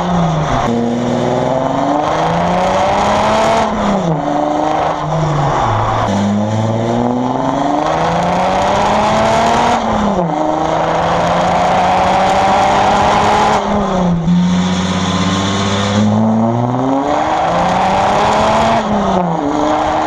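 Exhaust of a 340 PS Audi A4 3.0 V6, heard right at the tailpipe while driving: the engine note climbs in pitch under acceleration and drops sharply at each gear change, several times over, with a steady rush of wind and road noise underneath.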